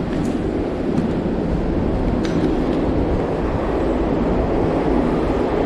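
Train arriving, a steady rumble that slowly grows louder, with a brief sharp click about two seconds in.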